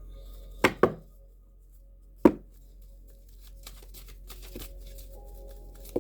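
Tarot cards being handled on a table: two sharp taps close together under a second in and another about two seconds in, like the deck being knocked or a card slapped down, then light quick ticks of cards being shuffled. Soft ambient music with steady held tones plays underneath.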